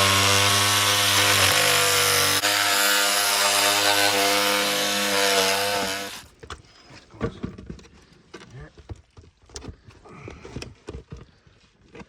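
A power saw cutting through a 6-inch water pipe, its motor whine holding steady, then stopping suddenly about six seconds in. Scattered knocks and clatter follow.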